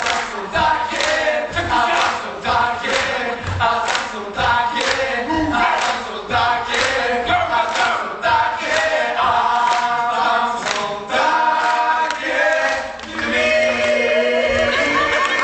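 A group of voices singing a gospel-style song together, with rhythmic clapping about twice a second. Near the end the clapping stops and the voices hold a long chord.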